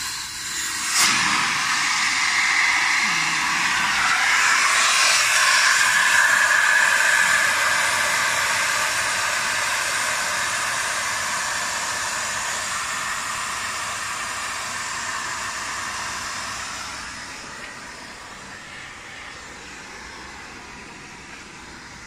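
Refrigerant gas hissing as it is blown from a cylinder through an air conditioner's lines and out of an opened pipe to flush the system. The hiss grows over the first few seconds, then slowly fades as the flow eases.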